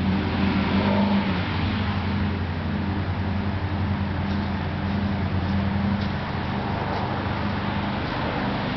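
Kawasaki KZ650 air-cooled inline-four engine running steadily, its Mikuni carburettors open without air filters.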